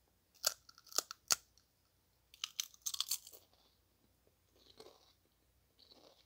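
Biting and crunching a Lay's Sour Cream & Onion potato chip: three sharp crunches in the first second and a half, a quicker cluster of crunches about two and a half to three and a half seconds in, then softer chewing.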